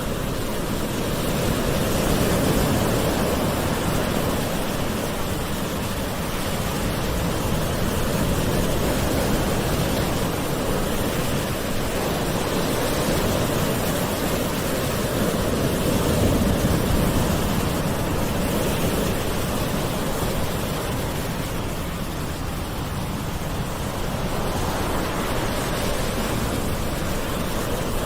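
Gentle ocean waves washing in as a continuous soft wash, swelling and easing every few seconds.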